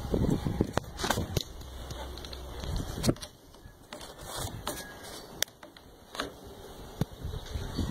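Scattered sharp knocks and clicks, about seven spread irregularly, as a metal clamp is fitted and worked against a wooden floor joist to straighten it.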